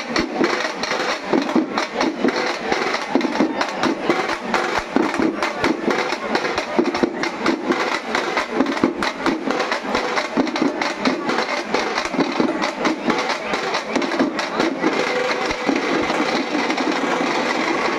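Fast, continuous folk drumming on drums beaten with sticks, a dense rapid rhythm kept up without a break, with crowd voices underneath.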